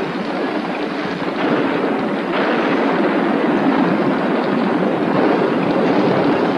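Cartoon sound effect of heavy rain pouring down, a steady even hiss.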